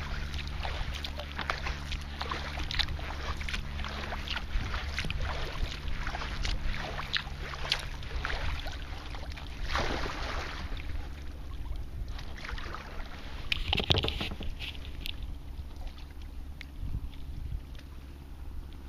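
Sea kayak paddling: the paddle blades dip and splash in calm seawater, and water drips and trickles off them between strokes. There is a louder splash about halfway through and another, the loudest, a few seconds later.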